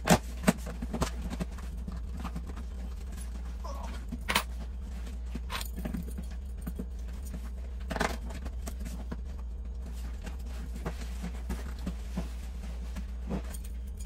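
Keys scraping and jabbing at the tape of a cardboard shipping box, with irregular knocks, clicks and rustles as the box is handled and torn open, over a steady low hum.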